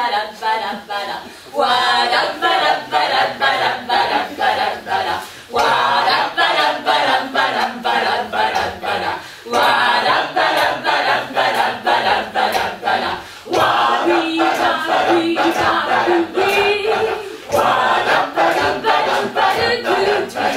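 A group of voices singing a song together unaccompanied, in phrases of about four seconds with short breaks between them, over steady hand claps about twice a second.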